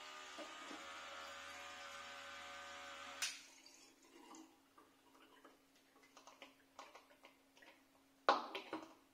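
A small battery-powered electric transfer pump runs with a low hum as cider pours through its tube into a funnel and glass bottle, then stops suddenly about three seconds in. Afterwards come faint drips and small clicks, and a short clatter near the end.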